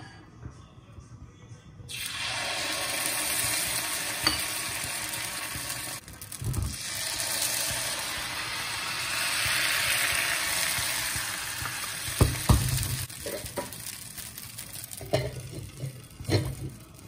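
Appam batter sizzling loudly in a hot cast-iron appam pan (appachatti) as it is poured in and swirled round; the hiss starts about two seconds in and fades in the last few seconds. A few sharp knocks come near the end as the glass lid goes on.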